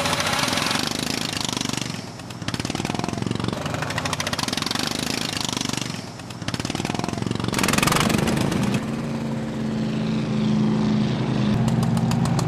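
Racing lawn tractor's small petrol engine running hard, easing off twice and picking up again. Near the end it settles into a steady, even note.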